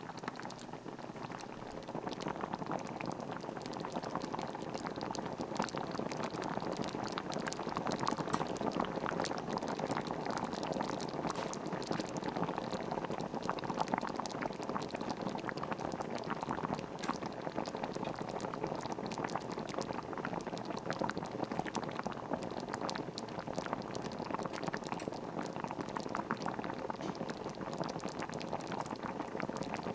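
A pot of soup boiling steadily, a dense bubbling with many small pops.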